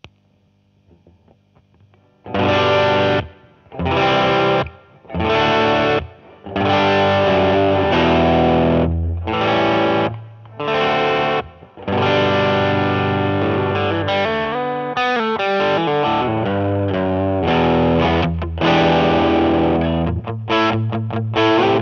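Electric guitar played through an engaged JSA Hot Toddy discrete-op-amp overdrive pedal. After about two seconds of near quiet comes a run of short overdriven chord stabs with gaps between them. These give way to longer ringing chords and riffing, with quicker choppy hits near the end.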